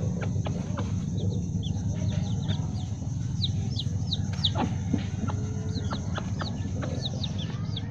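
Baby chickens peeping with many short, high, falling peeps while a mother hen clucks as she feeds them, over a steady low hum.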